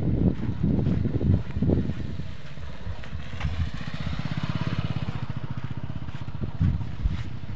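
A motorcycle engine running as it passes close by, with an even, rapid putter for a few seconds in the middle. Low, irregular buffeting on the microphone is loudest in the first couple of seconds and again near the end.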